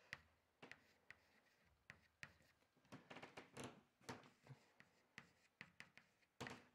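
Faint chalk writing on a chalkboard: a string of short taps as the chalk meets the board, with a few longer scratchy strokes about three to four seconds in.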